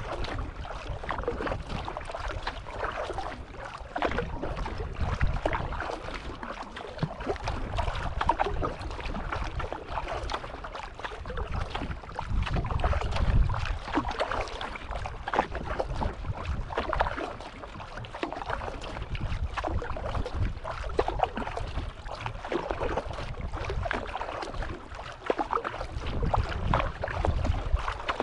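Sea kayak being paddled across open water: paddle strokes splashing and water washing along the hull, with wind rumbling on the microphone in gusts.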